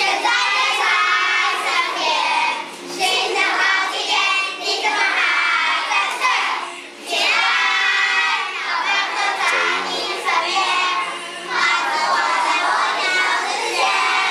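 A group of young children singing a song together, phrase by phrase, with brief pauses between lines.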